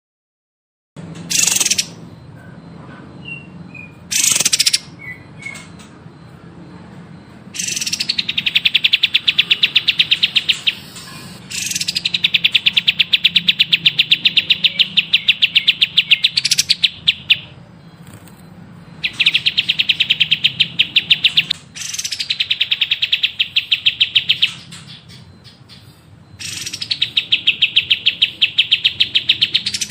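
Songbird singing: after about a second of silence come two short sharp calls, then long rapid trills of evenly repeated notes, each lasting several seconds, given five times with softer twittering between them.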